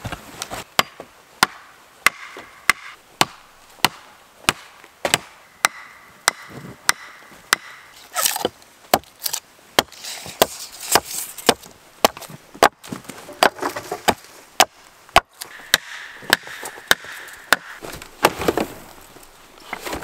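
An axe chopping wood, hewing the end of a wooden stake or board in a run of sharp, separate blows, about one or two a second.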